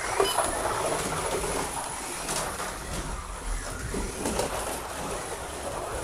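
A magnetless McLaren slot car running fast on a plastic Carrera track: its small electric motor whirs while the guide and tyres rattle and clatter along the slotted track, with light clicks. The car is being thrown into deliberate slides in the corners.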